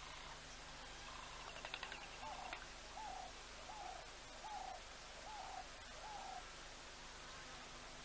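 A bird calling: a brief rapid rattle, then six hooting whistled notes, each rising and falling, repeated a little under a second apart.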